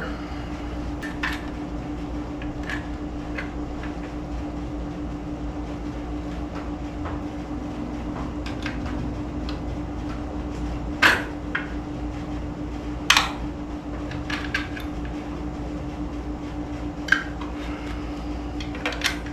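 Metal parts and hand tools clinking and knocking during engine assembly on a small-block V8, with two louder knocks about two seconds apart past the middle, over a steady mechanical hum.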